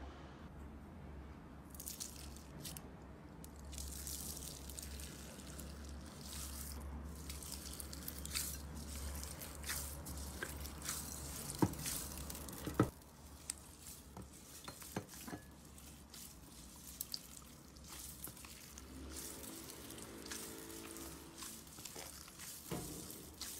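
Hands squishing and poking slime, making sticky, wet pops and crackling clicks. About halfway through the sound changes to clear slime packed with small beads being pressed and kneaded, with crunchy clicks. Two sharp clicks a little before that change are the loudest sounds.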